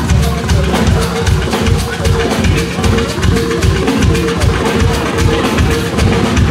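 Live gospel band instrumental break: drums and percussion keeping a quick, even beat under a held note, with no singing.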